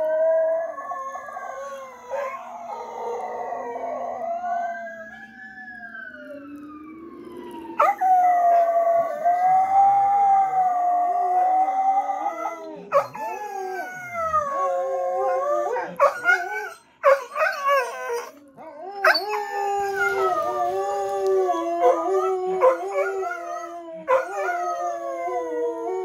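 Two pet dogs howling at a fire truck siren played back from a recorded video. For the first several seconds the siren's rising and falling wail mixes with the howls. Then one long, loud, wavering howl follows, and after that overlapping shorter howls from both dogs that break off and start again.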